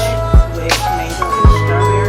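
Background music with a steady beat: deep bass kicks and sharp snare hits over a held bass line.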